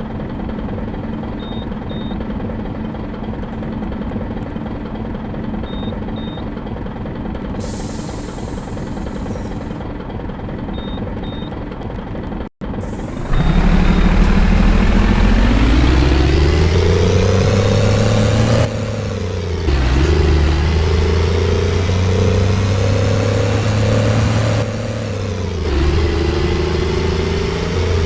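Bus diesel engine idling steadily, with short paired beeps now and then and a burst of hiss about eight seconds in. After a brief dropout about halfway, the engine pulls away loudly, its pitch rising, falling back twice as it changes gear, then rising again. It has a heavy, truck-like engine sound.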